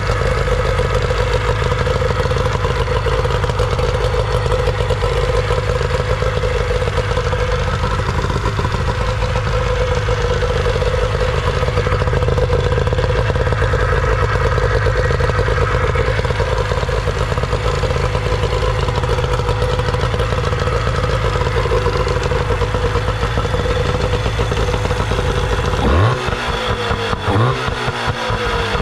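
Older Nissan 18 hp two-stroke outboard motor running steadily on fresh fuel after a carburetor cleaning, with two quick rises in revs near the end.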